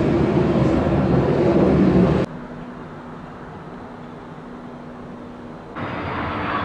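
Low, steady roar of a McDonnell Douglas MD-80-series airliner's rear-mounted jet engines as it climbs out, cut off abruptly about two seconds in. A quieter stretch with a steady low hum follows, and near the end a louder, hissier jet roar comes in from a twin-engine airliner on the runway.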